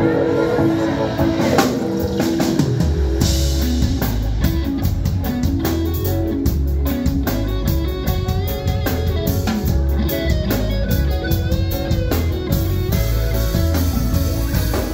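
A rock band playing live: electric guitars over bass and drum kit. The heavy low end and steady drum hits come in about three seconds in, and the full band plays on.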